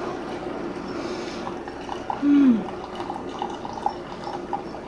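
Keurig K55 single-serve coffee brewer mid-brew: its pump running and a thin stream of coffee pouring into a mug, with small light gurgles. About two seconds in, a brief low hum falls in pitch.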